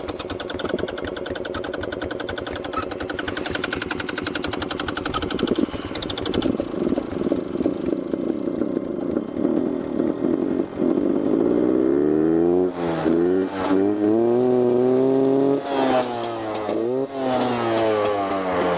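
A small engine running with a fast, rough beat, then revved up and back down several times in the second half.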